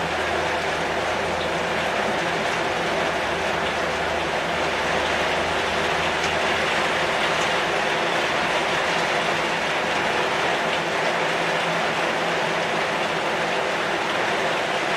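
Heavy rain falling on a corrugated zinc (seng) roof and on the leaves of a red-shoot shrub, a dense, steady rush of noise without a break.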